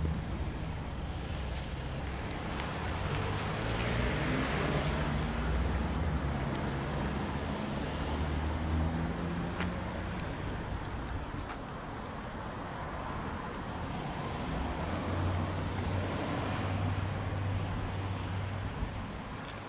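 Car driving on a road: a steady low engine hum under tyre and road noise, swelling louder about four seconds in and again later on.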